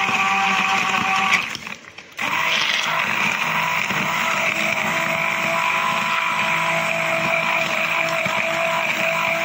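Hand-held immersion blender running in a glass jug, blending mulberries and ice cubes into a shake: a steady motor whine with churning. It cuts out for under a second about one and a half seconds in, then starts again and runs steadily.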